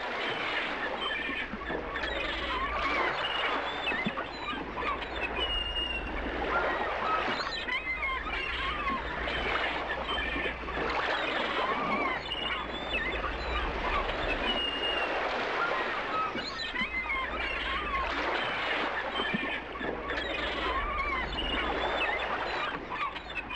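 Many birds calling over one another in a dense chorus of short chirps and whistles, with a steady low rumble underneath.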